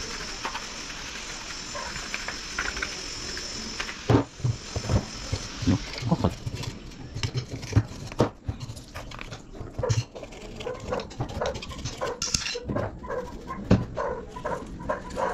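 Dry bristle paintbrush scrubbing dust off a rotary hammer's housing, a steady hiss for about four seconds. Then irregular clicks and knocks as the motor armature and brush-holder plate are handled and scraped with a thin metal tool.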